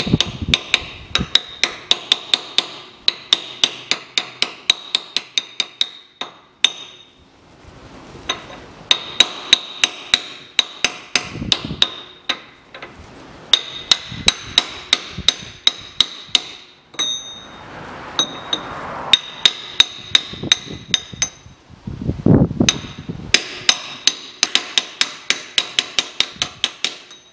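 Hammer tapping a seal driver to press a new rear axle seal into the axle housing of a 1985 Isuzu Trooper. Quick runs of sharp metal-on-metal strikes, about four a second, each ringing briefly, with short pauses between runs.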